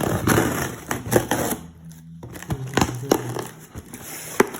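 Shipping package being opened by hand: rustling and crinkling of packaging material with scattered sharp clicks and knocks.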